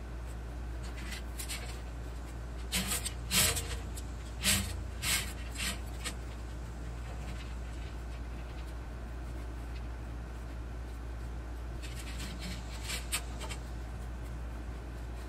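Short clanks and scrapes of a steel vertical smoker cabinet being shifted and seated on its wheeled steel stand, in two spells with a pause between, over a steady low hum.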